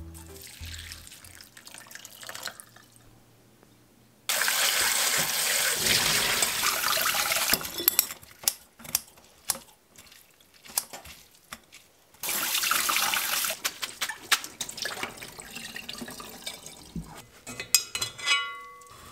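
Tap water running into a stainless steel sink in two spells while soaked seaweed is rinsed in a mesh strainer. Between them come scattered sharp snips and clicks of kitchen scissors cutting the seaweed, and near the end a short metallic clink of the strainer against the pot.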